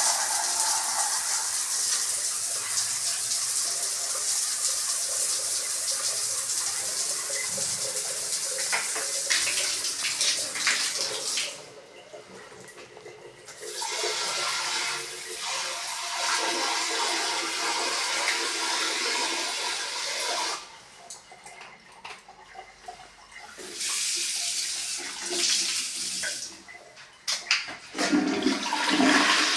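Water rushing through newly fitted bathroom fixtures in several spells that start and stop suddenly, the first about eleven seconds long and the later ones a few seconds each.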